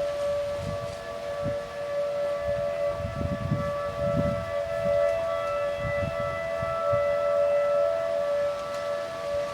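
Several distant outdoor tornado warning sirens sounding a steady tone together during a test, their pitches close but not matched. They swell and fade as the rotating sirens sweep around, over low rumbles of wind on the microphone.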